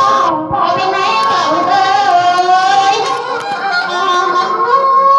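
A high voice singing a melody with music, holding long notes and sliding between them.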